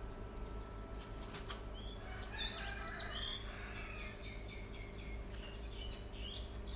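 Small birds chirping: many short, quick high chirps from about two seconds in, over a steady low hum.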